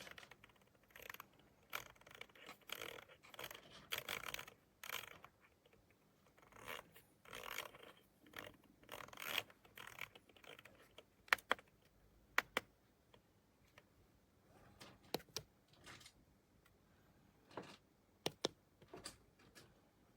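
Irregular scraping and rubbing handling noises, with several sharp single clicks in the second half.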